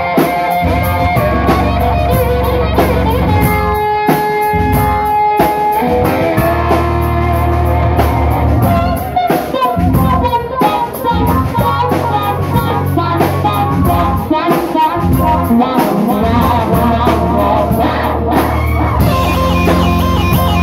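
Live rock band playing: electric guitar over a bass line and drum kit with steady cymbal strokes.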